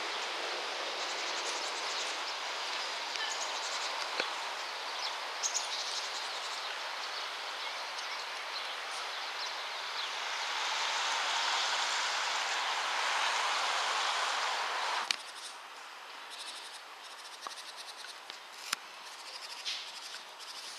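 Steady outdoor background noise, an even hiss-like haze, that drops away suddenly about fifteen seconds in, leaving a quieter background with a few light clicks.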